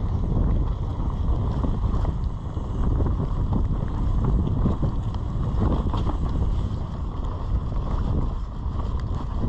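Wind rushing over the microphone of a camera on a mountain bike riding fast down a dirt singletrack, with tyres rolling on the dirt and frequent small knocks and rattles from the bike over the bumps.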